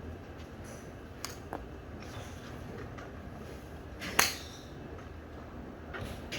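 A golf wedge strikes a ball once, a sharp click about four seconds in, over a steady low hum.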